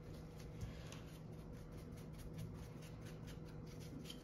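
Paintbrush bristles scrubbing dirt out of the metal mechanism of an overlock sewing machine: a quick series of faint scratchy strokes.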